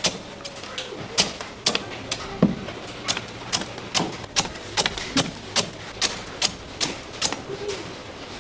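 Chopping on a cutting board: sharp, even knocks about two a second.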